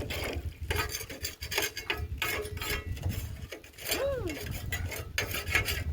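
Irregular rubbing and scraping noises, with one short call that rises and falls in pitch about four seconds in.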